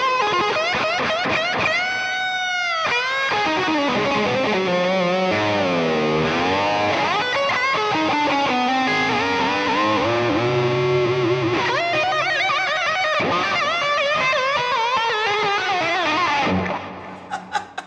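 Distorted electric guitar fitted with a Wilkinson WVS54 vibrato bridge, playing lead lines with repeated pitch dips and swoops from the vibrato bar. It cuts off suddenly near the end, followed by a few faint clicks.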